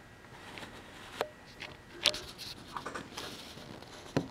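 Märklin BR 74 model steam locomotive and its wagons rolling slowly on the track: a light rubbing, scratchy running noise with irregular small clicks, and a few sharper knocks, the loudest about two seconds in and again near the end.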